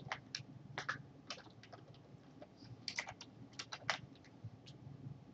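Computer keyboard typing: quiet, irregular keystroke clicks in small clusters separated by short pauses.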